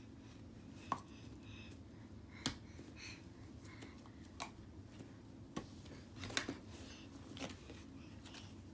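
Scattered light clicks and taps of small objects being handled, about seven over several seconds with a quick cluster a little past the middle, over a low steady hum.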